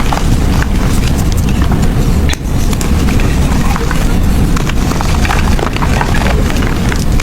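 Blocks of gym chalk crushed and crumbled by hand close to the microphone: dense crunching and crackling over a heavy low rumble, with a brief dip about two and a half seconds in.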